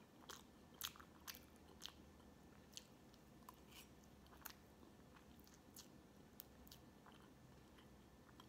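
A person quietly chewing soft cake: faint, scattered wet mouth clicks and smacks, a little busier in the first couple of seconds.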